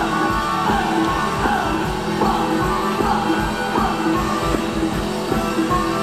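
Live ramwong dance music from a band, with a singer's melody over a steady, quick drum beat.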